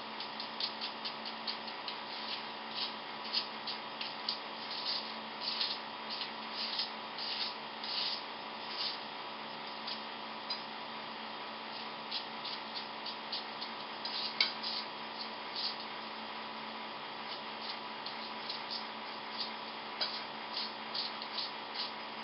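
Kitchen knife cutting a hand-held onion into a bowl: short, crisp cuts at an irregular pace, a few a second, with one sharper tick about two-thirds through. A steady electrical hum runs beneath.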